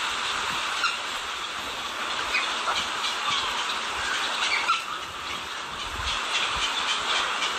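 Steady rush of a woodland stream's flowing water, with footsteps crunching through dry fallen leaves and a few short high ticks.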